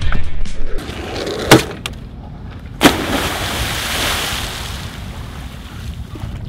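A sharp knock, then about a second later a person plunging into harbour water with a loud splash. Spray hisses down and dies away over the next couple of seconds.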